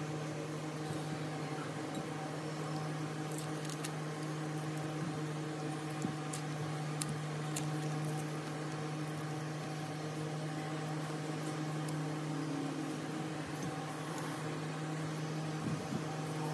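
A steady, even machine hum, like a small motor or appliance running, with a few light clicks from a small plastic toy part being handled, mostly in the first half.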